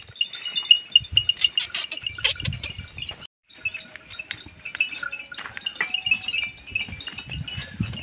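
Goats moving about with a few faint bleats and scattered small ticks. Behind them is a steady high-pitched drone of insects, which drops out briefly about three seconds in.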